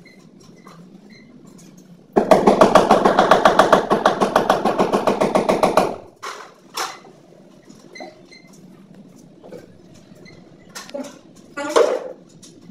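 Power drill boring into the wall for about four seconds, starting and stopping abruptly with a fast, even rattle. A few sharp hammer knocks near the end.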